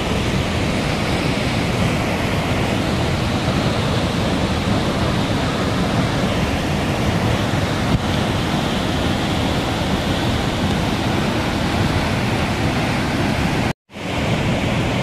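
Muddy floodwater pouring over a rocky cliff as a waterfall: a steady, loud rush of water with wind on the microphone. The sound drops out completely for an instant near the end.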